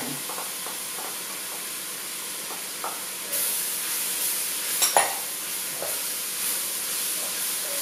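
Onions, crimini mushrooms and corn sizzle steadily in hot oil in a glass pot while a wooden spatula stirs them. The sizzle gets louder about three seconds in, and a few seconds later the spatula knocks sharply against the pot once.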